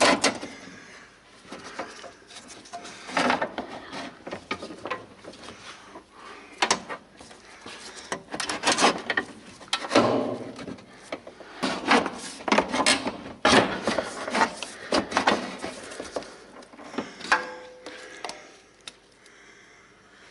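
Hand tools and car parts being worked on: irregular knocks, clatters and scraping, in uneven bursts with short pauses between them.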